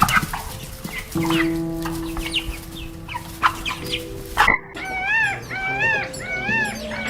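Bird calls over background music: a jumble of short calls, then an abrupt cut about four and a half seconds in to a quick series of repeated calls that rise and fall in pitch, roughly two a second.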